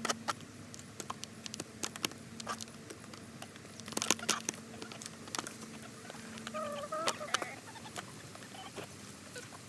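Chickens pecking cake crumbs from an aluminium foil pan: quick irregular taps of beaks on the foil and crumbs, busiest about four seconds in. A hen gives a short wavering call around seven seconds in.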